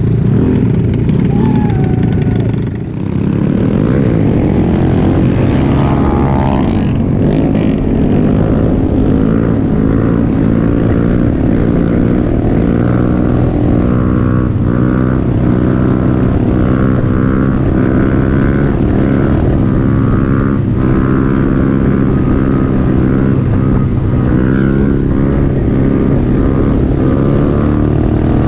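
Small single-cylinder mini bike engine running hard at high revs under way, with wind noise on the microphone. The engine briefly eases off about three seconds in, then climbs back up.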